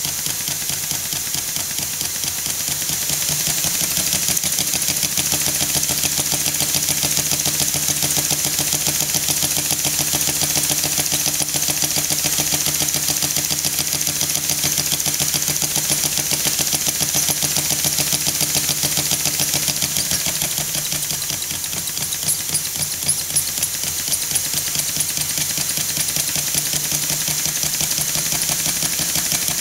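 Stuart S50 single-cylinder model mill steam engine running fast on compressed air at about 5 psi, its exhaust and motion giving a rapid, even beat. The beat eases slightly for a couple of seconds about two-thirds of the way through.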